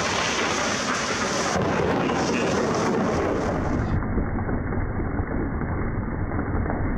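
Thunderstorm: heavy rain pouring down in a dense steady hiss, with a deep rumble growing from about three seconds in. The sound changes abruptly twice, as between different recordings.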